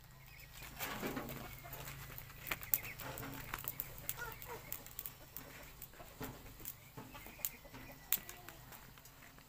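Chickens clucking, with a few sharp clicks.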